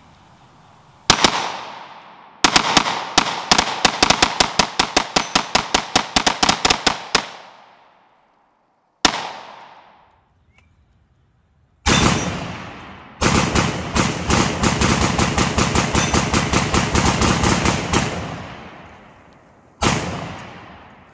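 AR-15 rifle fired through a Franklin Armory BFSIII binary trigger set to binary, which fires one shot on the pull and one on the release. Mostly two long rapid strings of shots several seconds each, the second faster, with single shots before, between and at the end; each shot trails off in echo.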